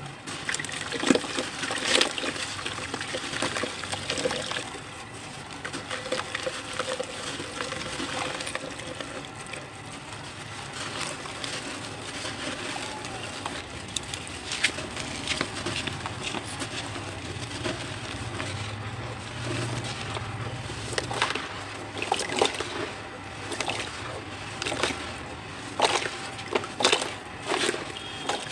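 Reused cement chunks crushed and crumbled by hand, a gritty hiss of falling powder broken by sharp crunches and cracks, which come thicker and louder in the last several seconds. Water splashes and drips as a soaked block is lifted out at the start.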